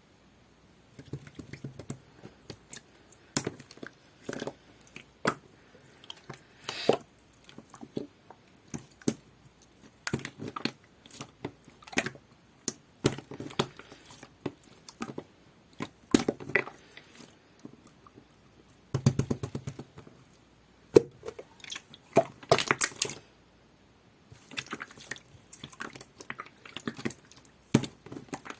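Black and white jelly-textured slime being squeezed and pressed by hand, making many irregular sticky clicks, pops and squelches, with a few pauses between bursts.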